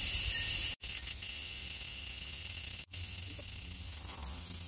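Steady hiss of air rushing out of rapid tire deflators fitted to the valve stems of 35-inch off-road tires, the tires being aired down toward 15 psi. It cuts out abruptly twice for an instant.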